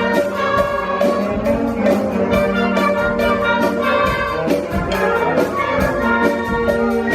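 School band playing, with brass holding chords over a steady beat of percussion strikes.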